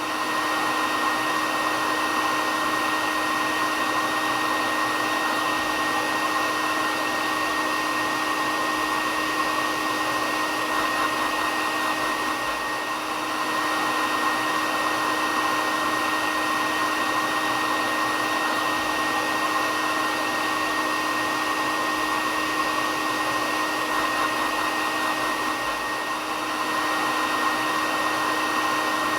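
Hair dryer running steadily: an even whooshing blow with a steady high whine on top, dipping very slightly twice.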